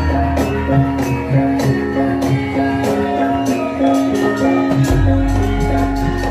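Live gamelan music for a Lengger dance: ringing metallophone tones over a quick, even percussive beat, with a deep low note coming in about five seconds in.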